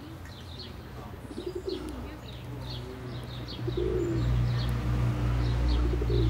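Small birds chirping in quick short calls throughout, with low pigeon-like coos now and then; a low rumble swells about halfway through.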